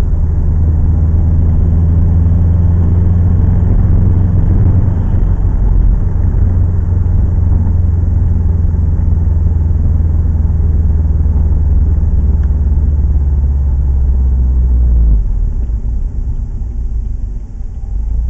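Engine and road drone inside a Subaru STi's cabin while cruising at about 40 mph, a steady low hum. About fifteen seconds in, the hum drops away as the car comes off the throttle and slows down.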